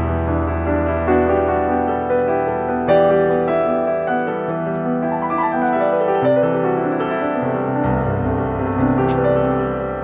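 Background piano music: sustained notes and chords over a slowly changing bass.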